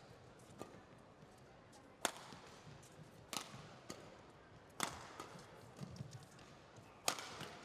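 Badminton rackets striking a shuttlecock during a doubles rally: a string of sharp cracks. The four loudest come about every one and a half to two seconds, with fainter hits between them.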